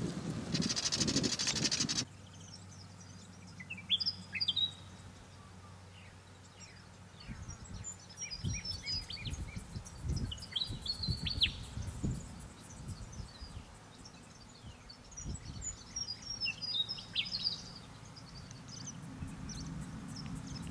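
Willie wagtail singing: three bursts of quick, high chirps and sweeping notes, about four seconds in, for several seconds from about seven seconds, and again from about fifteen seconds, over low gusts of wind on the microphone. The first two seconds hold loud wind noise that cuts off abruptly.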